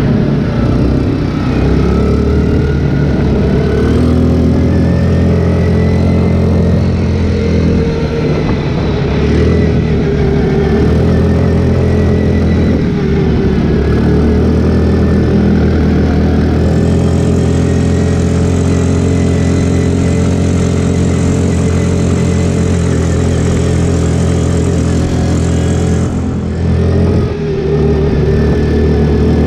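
ATV (quad bike) engine running under throttle, heard from on board the machine. Its pitch shifts a little with the throttle, and it eases off briefly about three seconds before the end.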